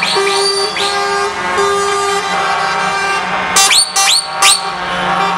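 Truck air horns honking in repeated short blasts over the steady drone of passing truck engines, with three louder blasts near the end.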